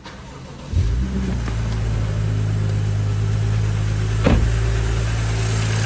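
BMW engine starting up and settling into a steady idle, with a single sharp click about four seconds in. The engine has a noise that the owner puts down to the timing chain.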